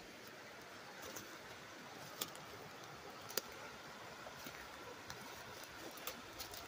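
Faint, steady rush of a shallow rocky mountain creek, with a few sharp snaps of footsteps through dry brush and twigs.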